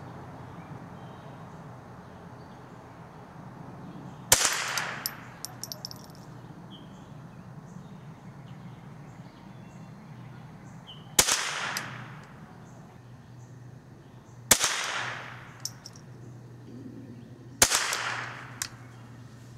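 Four single shots from a Glenfield Marlin Model 75C semi-automatic .22 Long Rifle carbine firing CCI standard velocity ammunition. They are slow, aimed shots: the first comes about four seconds in, the rest several seconds apart. Each is a sharp crack trailing off in a short echo, with a few faint clicks after the first and last.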